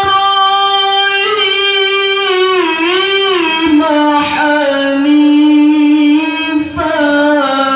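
A qari's solo melodic Quran recitation (tilawah) in a high voice, through a microphone. He holds a long high note, winds through ornamental turns about three seconds in, then settles on a lower held note.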